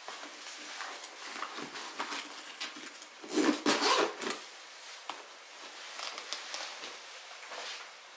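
Items slid into a tote bag with light rustling and knocks, then the bag's zipper drawn shut in one pull a little over three seconds in, the loudest sound.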